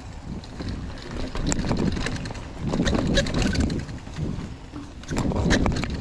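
Trek mountain bike rolling along a dirt trail strewn with dry leaves and sticks: the tyres rumble and crunch over the ground, with scattered rattles and clicks from the bike and wind buffeting the microphone.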